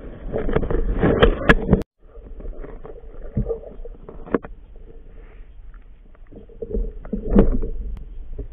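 Muffled underwater sound picked up by a camera mounted on a spear crossbow: water sloshing and rushing past the housing, loud for the first two seconds, then cutting off abruptly. Quieter water noise with a faint steady hum follows, broken by a few dull knocks.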